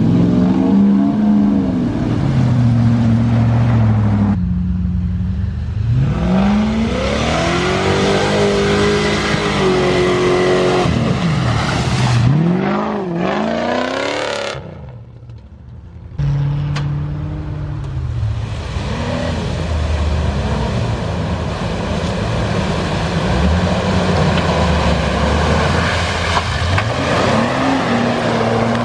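4WD engines revving up and down under load off-road. There is a short quieter dip about halfway through.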